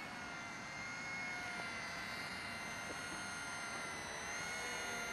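Eachine E130 flybarless RC helicopter in flight: the steady whine of its electric motors and spinning rotor blades, drifting slightly up and down in pitch.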